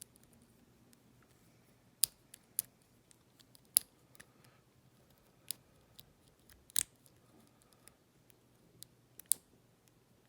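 Lock pick and tension wrench working the pins of a Yale High Grade pin tumbler padlock: sharp metallic clicks at irregular intervals, about one every second or so, as pins are probed toward the back of the lock without setting.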